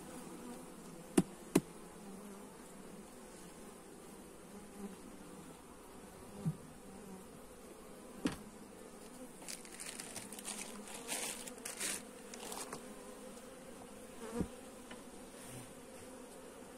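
Honeybees buzzing steadily around an open hive, with two sharp knocks about a second in and a few fainter knocks later.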